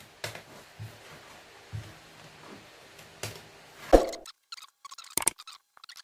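Paper being handled and slid on a wooden tabletop: soft rustles and light taps. About four seconds in comes a single loud thump, the loudest sound here. A few short sharp clicks follow near the end.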